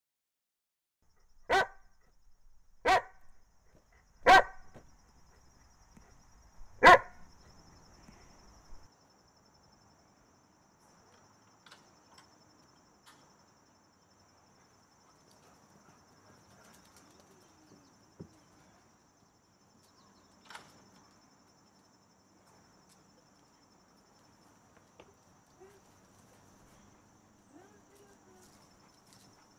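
A dog barks four times in the first seven seconds, the first three about a second and a half apart and the last the loudest. After that there is quiet ambience with a faint, steady high-pitched hum and a few soft, scattered sounds.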